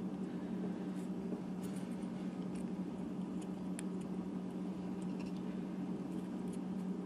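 Steady low background hum with faint, scattered small clicks and ticks from small prosthetic-finger parts being handled while the string is fished through the finger.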